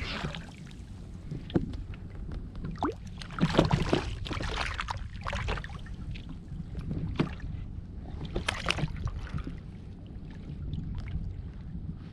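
Water lapping and splashing around a kayak under a steady low wind rumble on the microphone, with a few short, louder sudden sounds, the loudest about three and a half seconds in.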